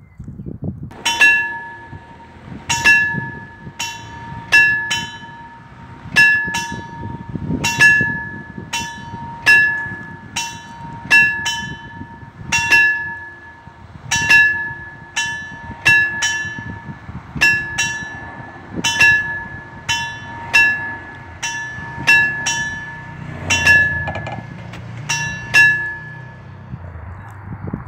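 Railway level-crossing warning bells (Fs64 boxes) ringing, a fast run of metallic dings, about one to two a second, slightly uneven as though from more than one bell. They ring while the warning lights flash and the barriers lower for an approaching train, and stop shortly before the end once the barriers are down.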